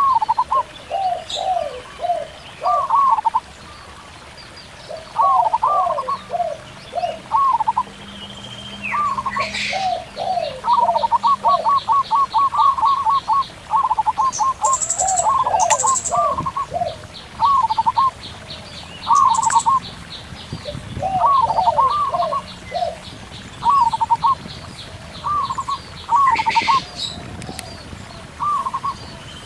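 Zebra doves and spotted doves cooing back and forth in short, repeated, hooked notes, one voice higher than the other, with a fast run of notes about ten seconds in. Underneath a stream babbles softly, and another bird adds fast, even ticking series and a few high chirps.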